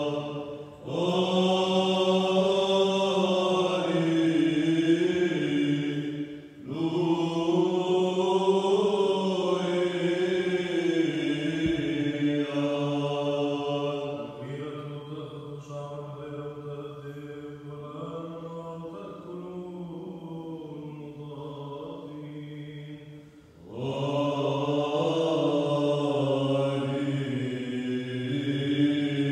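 A group of men chanting Orthodox Byzantine chant in Arabic, with a long reverberant ring in a large stone cathedral. The full group sings loud phrases with short breaks about a second in and near 7 s. From about 14 s the singing drops to a quieter, thinner passage, and the full group comes back loud at about 24 s.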